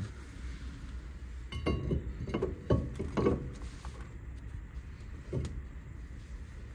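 Metallic clinks and knocks as a new slotted steel brake disc is offered up and slid onto the front wheel hub, a cluster of them with a light ring about a second and a half in and one more knock later.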